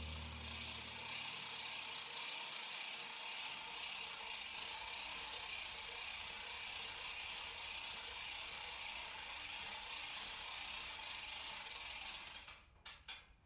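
A steady mechanical rattling whir, with the tail of piano music fading out in the first two seconds. The whir stops near the end, followed by a few clicks.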